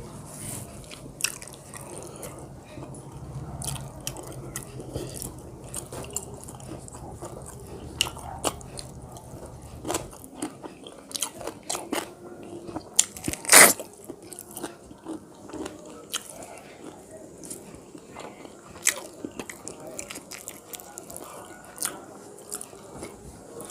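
Close-miked eating sounds: chewing with wet mouth clicks and smacks, one louder smack a little past the middle. A low background hum stops about ten seconds in.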